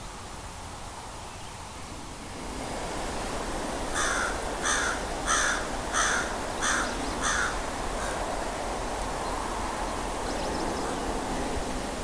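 A crow cawing six times in an even series, about one and a half caws a second, over a steady outdoor hiss.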